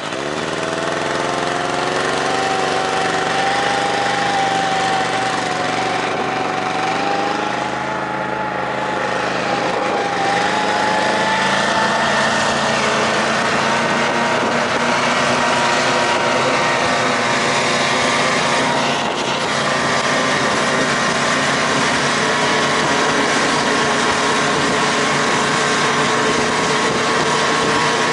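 Snowmobile engine revving up sharply as it pulls away, then running steadily under way with a slight rise and fall in pitch.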